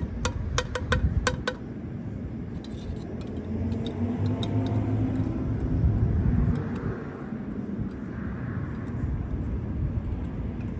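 A car passes by, its engine and tyre hum swelling to a peak about six seconds in and then fading. Before that comes a quick run of sharp clicks in the first second and a half.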